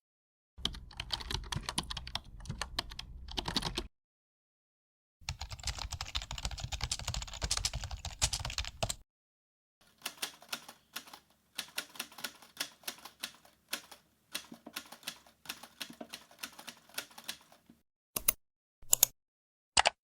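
Keyboard typing: three separate runs of quick key clicks with short silent gaps between them, the first two with a heavier thud under each keystroke, followed by a few single clicks near the end.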